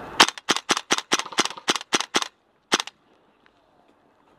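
Airsoft rifle firing a rapid string of about a dozen sharp shots, roughly five a second, then one more after a short pause.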